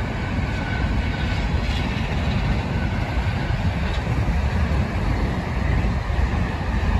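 Container freight train running past, its wagons giving a steady rumble on the rails.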